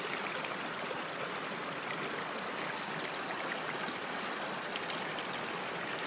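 A shallow, rocky mountain stream flowing and rippling over stones: a steady, even wash of running water.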